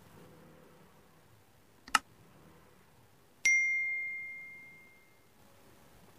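A single mouse-style click, then about a second and a half later a bell ding that rings on one clear tone and fades out over about two seconds: the sound effect of an on-screen subscribe-and-notification-bell button animation.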